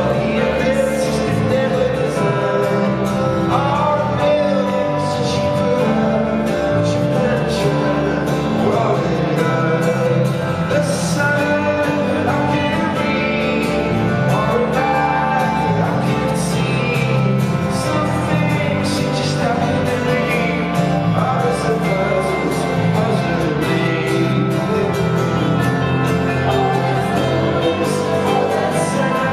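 A live band playing a song in an arena, with a man singing lead over guitar and a steady beat, heard from the audience.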